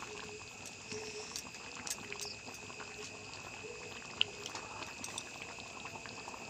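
Thick chickpea curry boiling in an aluminium kadai, the sauce bubbling with many small pops and crackles.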